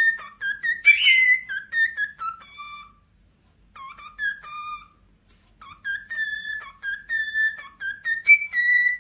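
Cockatiel singing: phrases of clear whistled notes that step and glide up and down, broken by two short pauses a few seconds in before the song picks up again.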